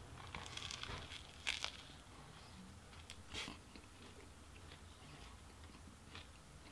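Crusty bánh mì baguette with grilled pork crunching as a bite is taken and chewed: a few crisp crunches in the first three seconds or so, then quieter chewing.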